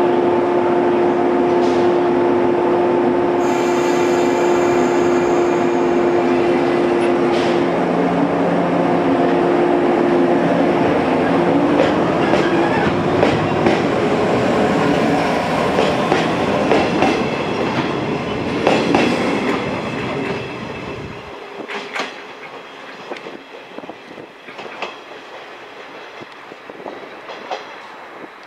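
Electric multiple-unit commuter train pulling out of the station: a steady hum with several held tones at first, then a rising rush with clicks and clatter of wheels over rail joints as it gathers speed. The low rumble cuts off about two-thirds of the way through, and the clatter fades as the train draws away.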